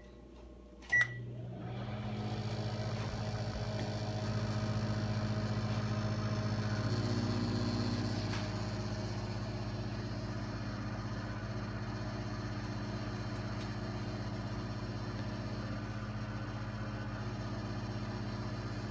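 GE Sensor microwave oven: a short beep about a second in, then the oven starts running with a steady electrical hum and fan noise. About seven seconds in, a further buzzing layer joins the hum as the heat kicks in.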